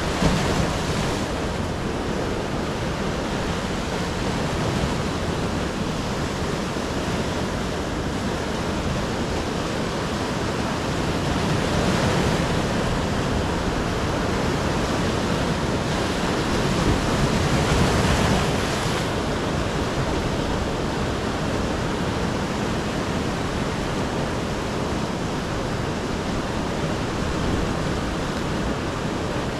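Sea waves breaking and washing over a shore, a steady rush of surf that swells louder twice, about a third of the way in and a little past halfway.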